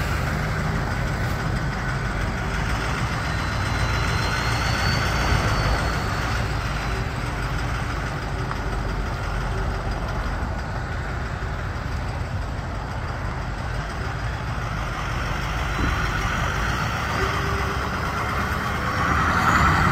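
International 4200 fuel truck's diesel engine running as the truck drives slowly, a steady rumble that grows louder near the end.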